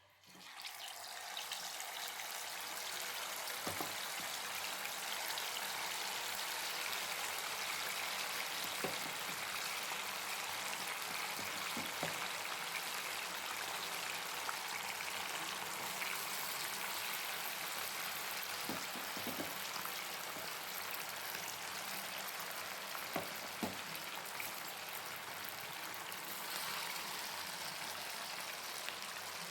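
Marinated chicken pieces deep-frying in hot oil: a steady, dense sizzle that starts suddenly, with scattered sharp pops and crackles.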